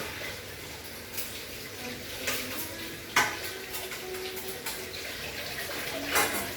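Dishes being washed under a running tap: a steady hiss of water with several clinks and knocks of crockery, the loudest a little after three seconds in.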